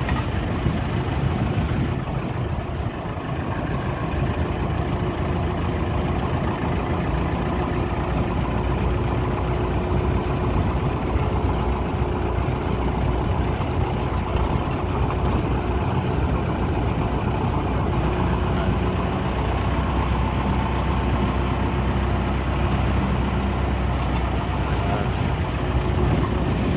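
Car on the move: a steady engine hum with road noise, unchanging throughout.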